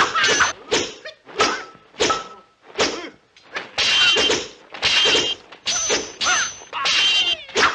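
Dubbed kung fu film weapon sound effects: a quick run of sharp clashes between a broadsword and a spear, about two a second, several ringing with a metallic clang.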